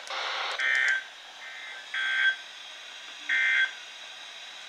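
NOAA Weather Radio receiver playing a brief hiss of static, then three short warbling SAME data bursts about a second and a half apart, with a fainter fourth burst between the first two. Their pattern is typical of the Emergency Alert System end-of-message code that closes a weekly test broadcast.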